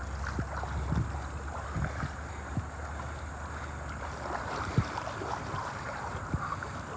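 Rushing creek water with wind buffeting the microphone, and a few short knocks scattered through.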